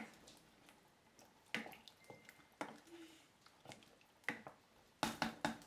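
Wooden spoon stirring chunks of vegetable in water in a stainless steel pot: scattered light knocks of the spoon against the pot with a little liquid sloshing, and a quick run of knocks near the end.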